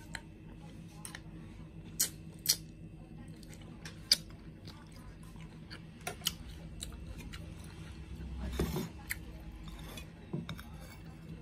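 Eating sounds: a metal spoon clicking and tapping on a china plate in scattered sharp clicks, the loudest about two seconds in, again half a second later, and around four seconds in, with a brief rustling swell near nine seconds.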